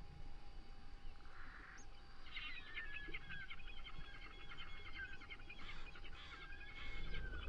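A bird calling in a rapid, chattering run of high notes that starts about two seconds in and lasts about five seconds, over a faint steady hum.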